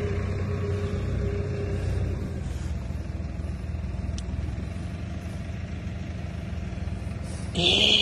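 An engine running steadily in the background, a low even hum. A higher steady tone in it drops away about two and a half seconds in. Near the end comes a short, loud vocal sound.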